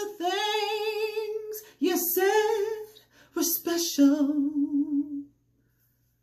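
A woman singing a cappella with a strong vibrato, the line "all of the things you said were special", in a small tiled room. The last word is held on a wavering note that stops about five seconds in.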